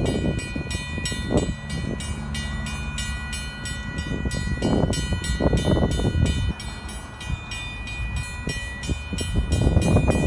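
Drawbridge traffic-gate warning bell ringing in rapid, even strokes while the gate arms lower, over a low rumble.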